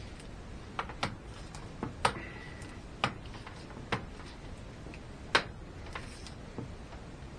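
Irregular sharp clicks and knocks, about eight of them, the loudest about two seconds in and past the middle: hard plastic parts being handled and pressed into place while a cap is fitted over the acrylic sheet facing of a fridge door.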